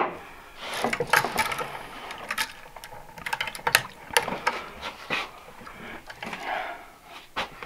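Handling noise from wiring a light switch: copper wires being bent and the switch's metal mounting strap and screw terminals knocking together, giving irregular small clicks and rustles.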